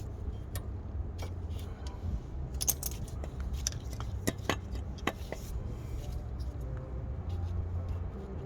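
Small metal tools and brake parts clinking and clicking as they are handled, a scattering of sharp light knocks, over a steady low rumble.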